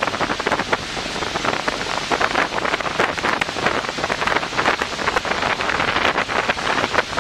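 Wind buffeting the microphone over rushing, splashing water in choppy seas, with many short crackling splashes.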